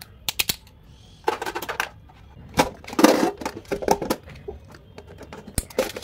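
Small metal tin coin box being handled: sharp clicks and taps of small stationery items and the tin lid, with a louder clatter about three seconds in as the lid is shut.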